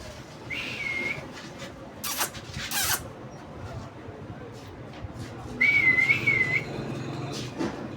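A parrot calling: two short, wavering whistles about five seconds apart, with two short harsh screeches between them.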